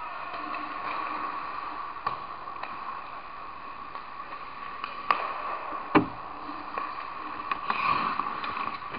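Ice hockey play: sharp clacks of sticks and puck, the loudest about six seconds in, over skates scraping the ice and a steady hum in the rink.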